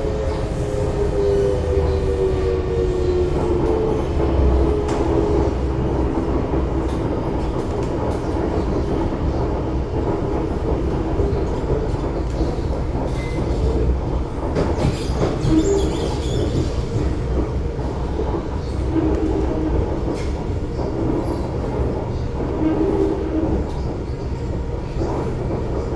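Inside a Singapore MRT C751B metro train in motion: steady rumble of wheels on rail, with a whine falling in pitch over the first few seconds and a short run of clicks about halfway through.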